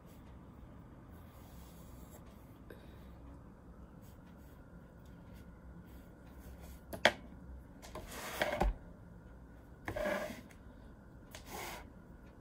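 Faint room quiet, then a sharp knock on the tabletop about seven seconds in, followed by three short scratchy bursts of graphite pencil and paper rubbing.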